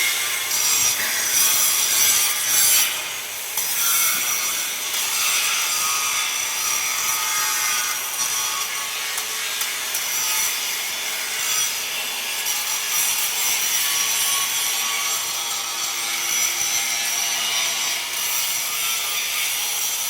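Metal being cut in a welding shop: a steady, hissing abrasive noise that carries on without a break.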